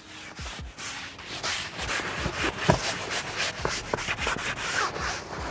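Vinyl boat seat being scrubbed by hand with a microfiber towel: repeated rubbing strokes that agitate and lift grime off the surface.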